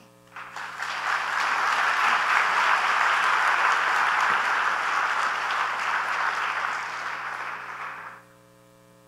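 Audience applauding, building up over the first second, holding steady, then fading and cutting off about eight seconds in.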